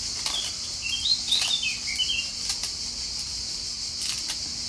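Steady high chirring of insects, with a small bird chirping several times in the first half and a few crisp snaps as romaine lettuce leaves are torn by hand.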